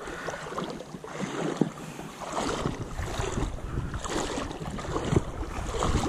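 River water sloshing and lapping close to a camera held at the surface as someone wades, coming in irregular surges, with some wind on the microphone.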